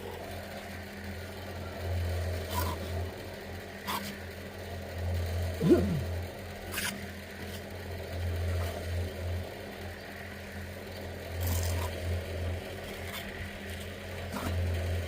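A small engine running with a low hum that swells and fades, with scattered clicks and knocks and a brief squeak about six seconds in.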